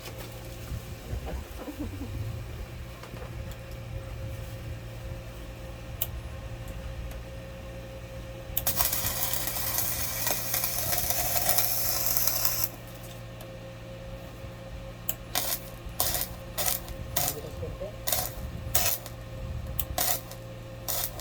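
A short welding run with the arc hissing and crackling for about four seconds, starting about nine seconds in. It is followed by around ten sharp metallic taps on the welded pipe over the last six seconds, over a steady hum.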